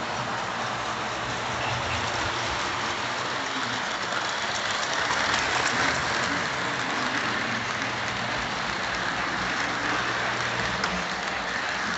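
Lionel O scale freight cars rolling past on FasTrack, giving a steady rolling clatter that swells about halfway through as the cars pass closest. A low steady hum runs underneath and fades near the end.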